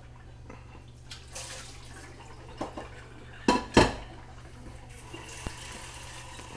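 Water running from a kitchen sink tap, with two sharp knocks of dishes or a glass in the sink a little past halfway and a few lighter clicks.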